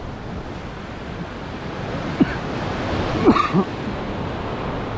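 Waves breaking and washing in churning white water, with wind on the microphone. A few brief, sharper sounds stand out about two seconds in and again around three to three and a half seconds in.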